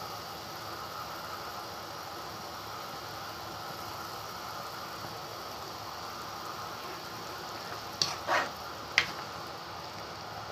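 Pot of pork and onion broth at a boil, giving a steady bubbling hiss while the foam is skimmed off with a ladle. Near the end come a few sharp knocks, as the ladle taps against the pot.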